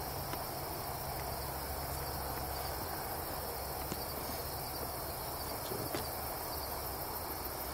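Crickets and other night insects trilling steadily, over a low steady hum, with a couple of faint ticks about four and six seconds in.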